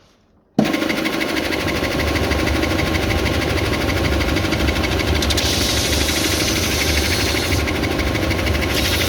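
Stationary belt sander starting up about half a second in and then running steadily with a low hum. From about five seconds in, a higher hiss joins it twice as a thick piece of wood is pressed against the moving sanding belt.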